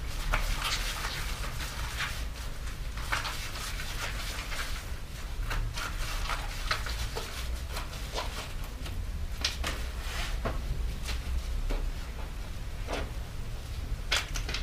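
Hand work on a bicycle wheel and tyre: irregular clicks, light knocks and rustles of tyre and parts being handled, with a few sharper clicks, over a steady low hum.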